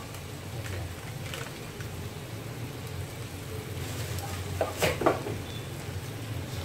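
Tofu, onions and chillies sizzling quietly in a frying pan over a steady low hum. About five seconds in, a short clatter of wooden spatulas knocking against the pan.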